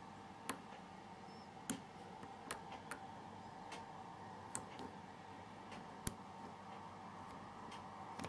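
Faint, irregular metallic clicks of a lock pick and tension wrench working the pins of a six-pin Winlock euro cylinder lock, about six small clicks spread over several seconds.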